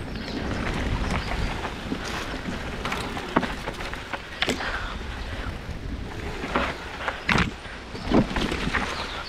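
Mountain bike descending a dirt forest trail, heard from a helmet-mounted camera: steady tyre and wind rumble on the microphone, broken by several sharp clacks and knocks as the bike hits bumps, the loudest about seven and eight seconds in.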